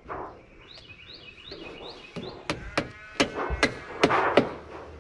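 Hammer blows on metal fascia trim at a roof edge: about seven sharp strikes in quick succession over two seconds, with a metallic ring after them. A few high chirps come just before the strikes.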